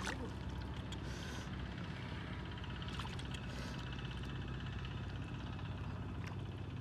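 A steady low engine hum, with a few small splashes of hands and feet in shallow muddy water.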